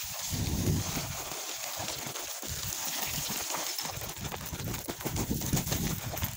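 Footsteps crunching and scuffing on loose scree stones, an irregular run of steps while climbing a steep slope.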